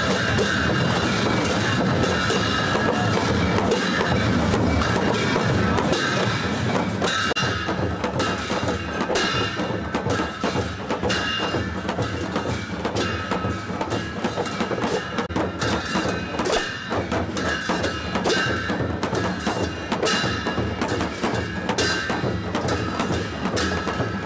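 Drum-led percussion music with many sharp, rapid strokes.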